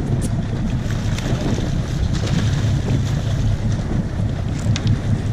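Sport-fishing boat's engine running steadily, with wind buffeting the microphone and water washing along the hull.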